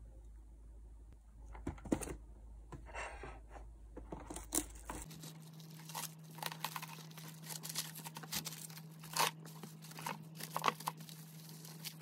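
Plastic cling wrap crinkling and crackling in quick irregular bursts as hands stretch it tightly around a sandwich, starting about five seconds in; before that, soft handling sounds as slices of ham are laid on the bread.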